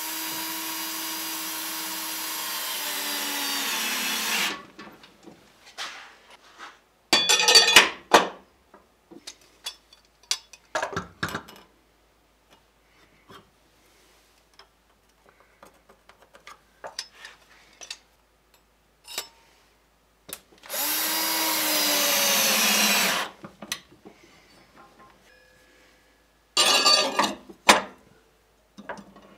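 Cordless drill driving screws through a steel clamp hanger into plywood. It runs steadily for about four seconds at the start, slowing near the end as the screw seats, and runs again for about two seconds later on. Between the runs come short rattling bursts and scattered clicks and knocks as the hardware and clamps are handled.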